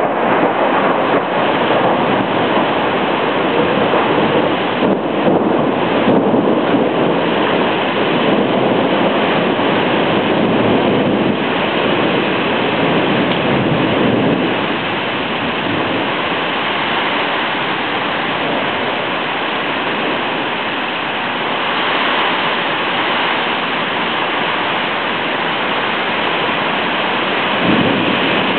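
Heavy rain pouring steadily in a thunderstorm, a little louder in the first half and easing slightly about halfway through.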